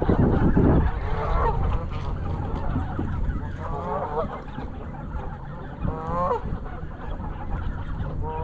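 Canada geese honking in short runs of calls every two seconds or so, over a steady low rumble. A loud rush of low noise fills the first second.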